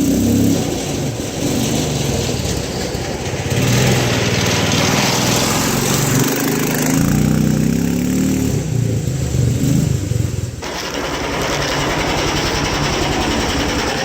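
A small vehicle engine running with its revs rising and falling, then dropping abruptly to a steady, lower, even idle about ten and a half seconds in.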